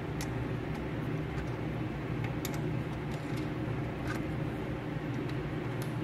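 A steady low hum, over which come a few faint clicks and light rubbing as hands press the factory rubber shift boot down over a short-throw shifter base.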